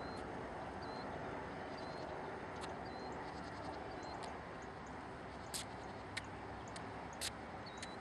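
Small birds calling outdoors: a short, high chirp repeats about once a second, and a few sharper, louder chips come in the second half, over a steady background hiss.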